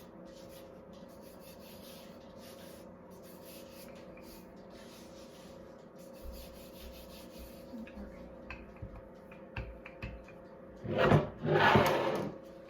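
Rolling pin rolling out pie dough on a floured pan: soft rubbing and scraping with light knocks, then two louder rolling strokes near the end. A steady hum runs underneath.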